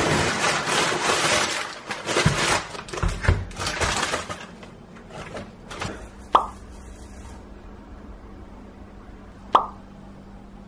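Rustling and crinkling of bags and plastic-wrapped packages being pulled out of a backpack, for about four seconds. Then two short, sharp pops about three seconds apart, over a low steady hum.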